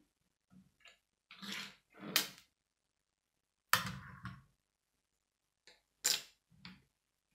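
Plastic Lego pieces of a police helicopter model being handled and fitted together: a few sharp clicks and rattles with brief soft rustles in between.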